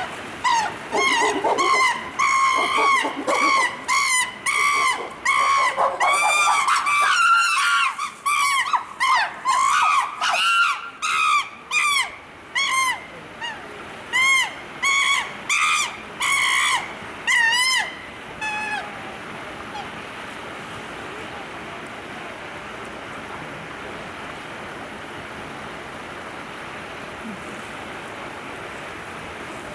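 A chimpanzee calling: a long run of loud, pitched hooting cries, one to two a second, that stops about 18 seconds in and leaves only a faint outdoor hush.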